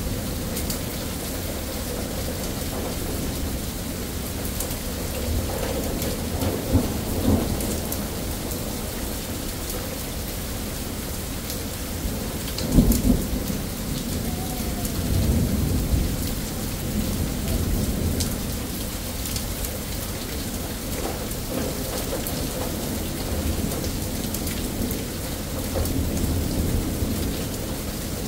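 Thunderstorm: steady rain with rolling thunder. Low rumbles swell about a quarter of the way in, the loudest comes a little before halfway, and another follows shortly after.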